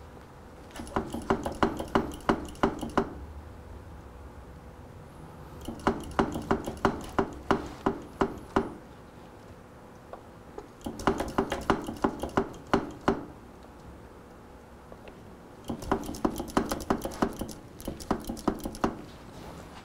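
Rapid metallic tapping or clicking at the front brake caliper while it is bled. It comes in four bursts of two to three seconds each, about five taps a second.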